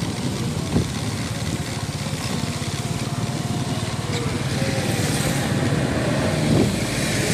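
Small motor scooter engine running as it is ridden, heard from the rider's seat, with its note climbing a little in the second half. A hiss grows louder from about five seconds in.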